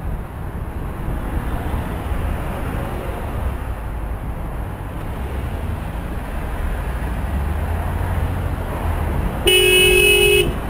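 Car horn sounded once, a steady blast of about a second near the end, over a low rumble of traffic and wind. It is the driver behind protesting at a cyclist who has filtered past the queue and merged in ahead.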